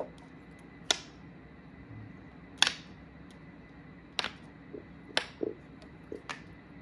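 Window blinds clicking and knocking as a cat paws at the cord and its pull knob, which swings against the slats. There are about five sharp clicks at uneven intervals, the loudest about two and a half seconds in, with a few softer knocks between them.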